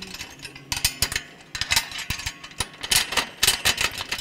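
Steel bracket hardware clicking, scraping and clinking in quick rattling runs as a long flange head bolt is worked through the bushing and the pivot-tube brackets on a front blade.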